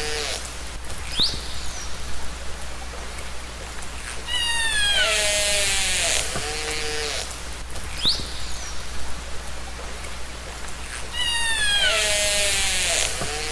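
Killer whale (orca) calls recorded underwater: falling, multi-toned whistling calls and short upward squeals over a steady hiss. The same call sequence repeats about every seven seconds.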